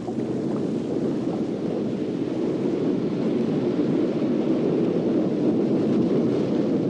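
Wind and heavy surf on a rough sea: a steady low rumble of noise.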